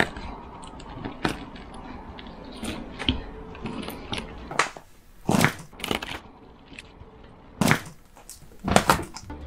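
Crispy fried chicken being pounded and crushed with a wooden rolling pin on a plastic cutting board: scattered crunches and taps, with several louder sharp cracks in the second half.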